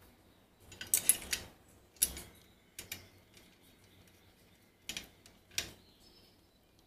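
Metal parts of a camping rack clicking and clinking as they are fitted together by hand: a quick cluster of clicks about a second in, then single clicks near two, three and five seconds.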